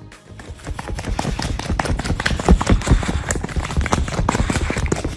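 A dog moving about hard on a blanket-covered couch: fast, irregular thumps and rustling that grow louder about a second in.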